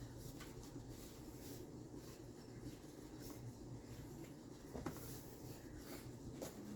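Faint rustling and light scratching of thin phyllo dough sheets being handled and laid down, over a low steady room hum, with one sharper click about five seconds in.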